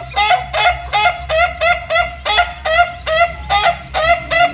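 Chickens calling in short, quick clucks repeated evenly, about three a second.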